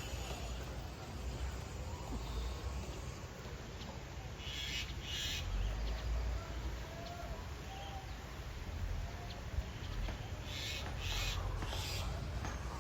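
Outdoor ambience while walking: a steady low rumble and hiss, with a few short rustling noises and faint short calls of a bird.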